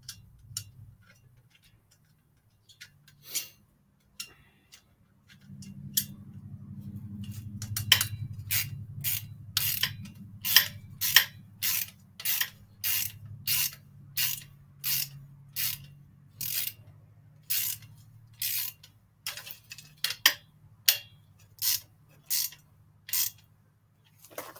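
A ratchet tool being worked on the bike's stem or headset, clicking at first now and then, then steadily about twice a second from about six seconds in. A low steady hum runs underneath from about five seconds in.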